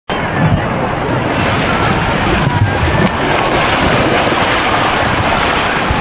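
Turbulent muddy floodwater rushing and churning into whirlpools, a loud steady rush. Wind buffets the microphone in uneven low thumps.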